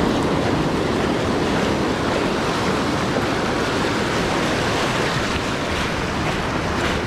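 Surf washing in over the sand in a steady rush, with wind buffeting the microphone.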